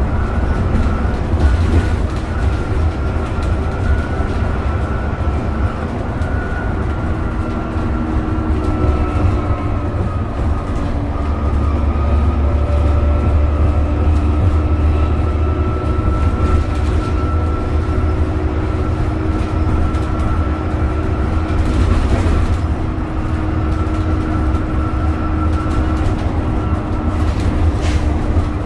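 Dennis Trident double-decker bus under way, heard from inside the lower deck: the Cummins ISCe diesel engine runs with a low drone while the axle whines with a high steady note that drifts a little in pitch. A couple of sharp rattles come about two-thirds of the way in and near the end.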